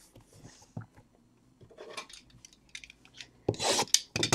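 Handling sounds from opening a sealed trading-card box: light scraping and ticking as the plastic wrap is cut and worked loose, then a louder rustle of plastic a little after three seconds in.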